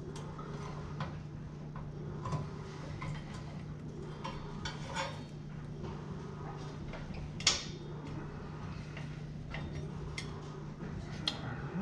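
Scattered light clicks and clinks from handling the straps and hardware that hold a truck's fuel tank up under the frame, the sharpest about seven and a half seconds in, over a steady low hum.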